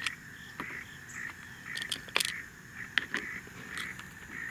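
Scattered plastic and metal clicks and scrapes as the side cover of a mini battery chainsaw is lifted off and the loosened chain and bar are handled.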